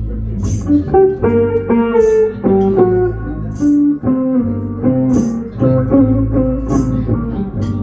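Live blues band in an instrumental break: a lead guitar plays a melodic single-note solo over bass guitar and drums, with a bright drum or cymbal hit about every second and a half.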